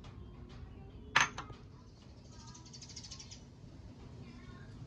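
A dish knocks sharply once against the serving bowl about a second in, as diced tomato is tipped onto the leaves. A quick run of faint high ticks follows, with faint bird chirps in the background.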